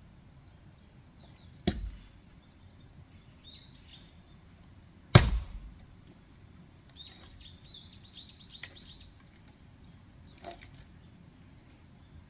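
Axe strikes splitting firewood: two heavy blows about three and a half seconds apart, the second the louder, and a lighter knock near the end. Small birds chirp between the strikes.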